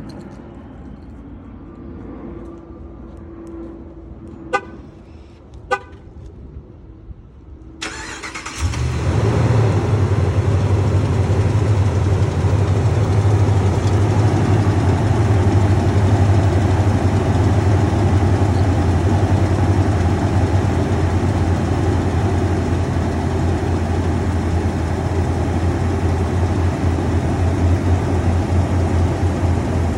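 Two short beeps, then a Ram pickup's Hemi V8 cranks about 8 seconds in, catches and runs steadily, with a loud engine cooling fan. The owner hears a start-up tick here that began after an engine flush and fades as the engine warms, which he suspects is dry lifters or the exhaust manifold.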